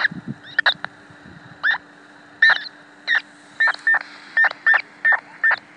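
Unidentified radio signal from an Icom IC-R3 scanner's speaker: a string of short chirping bursts, some ending in a brief steady beep, repeating irregularly several times a second, over a steady low hum and hiss.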